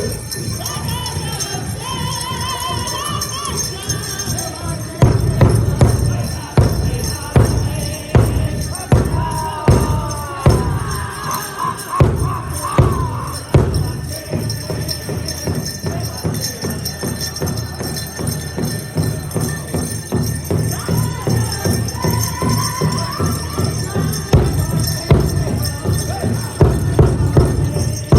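Powwow drum group singing high, gliding vocal lines over a big drum beaten in a steady pulse, with jingling throughout. The drumbeats grow much louder about five seconds in, with hard accented strokes.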